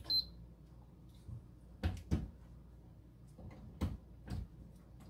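A few scattered knocks and clunks of handling as a power cord and plug are pushed into a wall socket behind the unit. The sharpest knock, with a brief high ping, comes right at the start, and others follow about two seconds and four seconds in.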